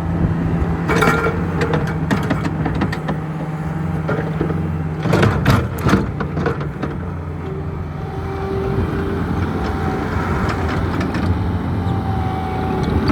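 Bobcat T66 compact track loader's diesel engine running as the machine is operated, with sharp metallic clanks about a second in and again around five to six seconds in. After the second clanks the engine note shifts, and faint thin whines come in near the end.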